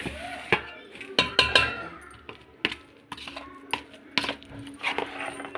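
A spoon clinking and scraping against a mixing bowl in about ten irregular sharp knocks, as ground lentil (dal) paste is scooped into the bowl.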